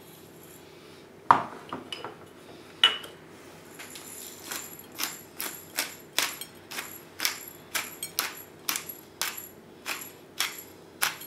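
Two sharp knocks near the start, then a pepper mill being twisted in short grinding strokes, about two a second, the peppercorns crackling as they are ground.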